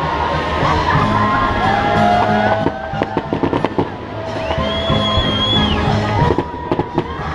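Aerial fireworks bursting and crackling, with sharp pops coming thick and fast near the start, thinning out in the middle, then crowding together again near the end.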